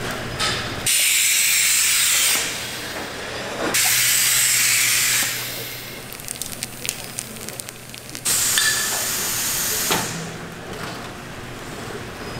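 Food-factory machinery venting in three loud bursts of hissing, each about a second and a half long. Between the second and third burst comes a run of light mechanical clicks, over a steady low machine hum.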